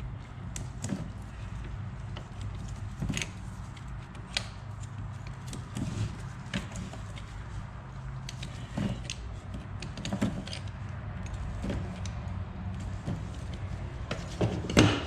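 Metal hand tools clinking and knocking on a Yamaha YZ85 engine while the front sprocket bolt is undone and the sprocket removed. The clinks come singly at irregular intervals, the loudest near the end, over a steady low hum.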